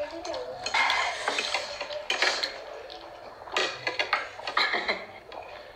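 Forks clinking and scraping against plates as people eat noodles, in short irregular bursts.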